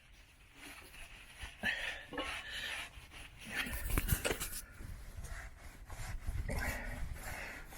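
Irregular rubbing and scraping with a few soft knocks, typical of handling at the rough, rust-marked bore of a cast-iron engine cylinder liner.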